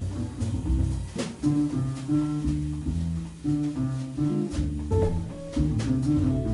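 Jazz guitar playing a single-note solo line over double bass and light drums in a small jazz combo.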